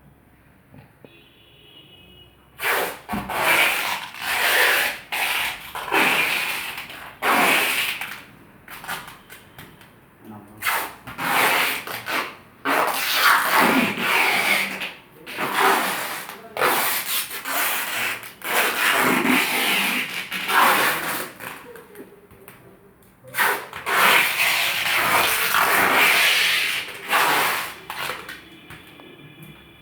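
Refrigerator being wrapped in foam sheet and packing tape: repeated rasping, rustling bursts of a second or two each with short pauses.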